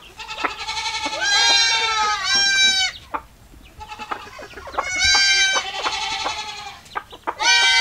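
Goats bleating repeatedly: several wavering calls about a second long, two overlapping near the start, with chickens clucking in the short gaps between.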